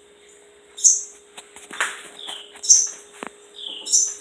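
Small songbirds chirping: four short, high chirps about a second apart, each dropping in pitch at the end. A faint steady hum runs underneath, with a couple of soft knocks.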